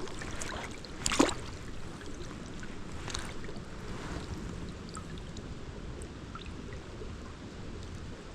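Creek water flowing steadily, with two brief louder splashes at the start and about a second in.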